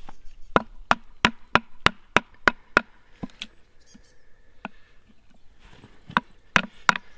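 Wooden baton knocks on the spine of an HX Outdoors Rock fixed-blade knife, driving its blade through a piece of wood to split it. A quick run of about three blows a second, a pause broken by a single blow, then another run near the end.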